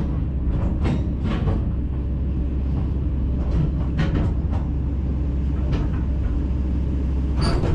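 Kobelco 210LC-9 excavator's diesel engine running steadily with a deep rumble, broken by irregular metallic clanks and knocks.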